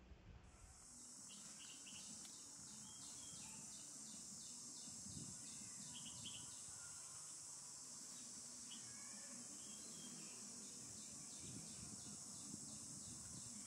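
Insects droning steadily at a high pitch, starting about half a second in, with a faint regular pulsing of about three beats a second beneath the drone.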